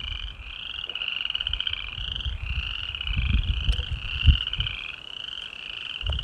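Steady background chorus of high, rapidly pulsing trilling animal calls. About three to four seconds in come a few low thumps from the water bottle being handled and lowered.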